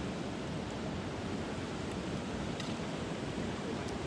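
Stream water rushing steadily over a shallow, rocky stretch around the canoe, with a couple of faint clicks.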